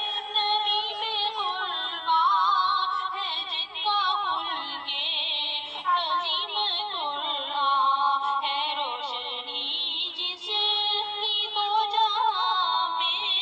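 Background music: a high female voice sings a melody full of wavering, ornamented turns and glides, with no break.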